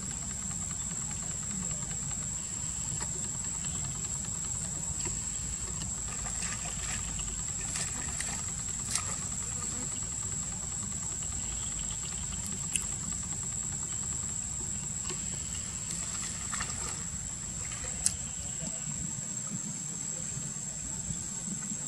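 A steady high insect drone over a constant low rumble, with three brief sharp clicks spread through.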